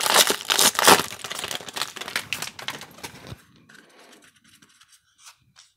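Foil wrapper of a baseball card pack being torn open and crinkled for about three seconds, then only a few faint ticks.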